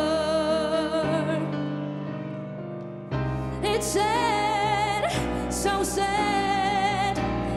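A female solo voice holds a long note with vibrato over piano, and the note fades away. About three seconds in, fuller accompaniment comes in louder and she sings on with vibrato: a ballad performance played back.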